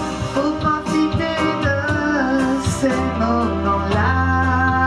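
A woman singing into a handheld microphone over backing music.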